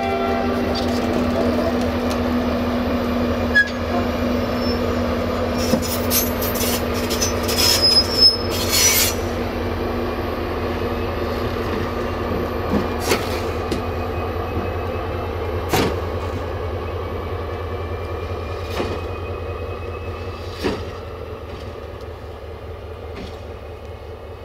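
Siemens ER20 Hercules diesel-electric locomotive running light at low speed, its diesel engine running steadily as it passes and moves away, slowly fading. The last note of its horn dies away at the start. The wheels click over rail joints and points, with a cluster of clicks and a brief high wheel squeal about eight seconds in.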